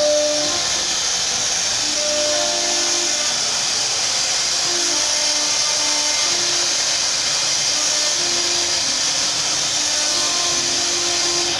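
CNC router spindle running at high speed and carving wood, a steady high hiss. Short hums at changing pitches come and go as the machine moves.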